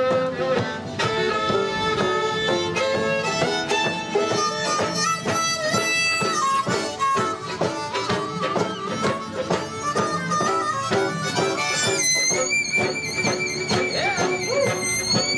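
Live folk trio playing a tune: harmonica, fiddle and banjo together. Near the end, a held, wavering high note comes to the front.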